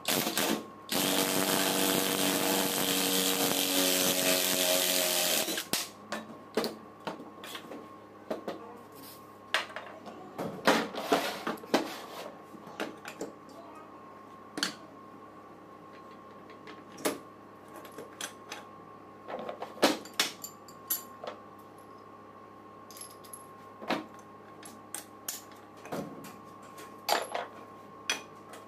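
A cordless drill with a socket runs steadily for about five seconds on an alternator's housing bolt, its pitch rising slightly near the end. After that come scattered sharp metal clicks and knocks as the alternator housing parts are handled against a bench vise.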